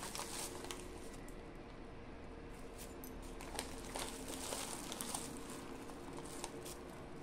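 Gram flour (besan) spooned into a stainless steel bowl of sliced cabbage and onion: faint soft rustles and a few light spoon clicks, over a faint steady hum.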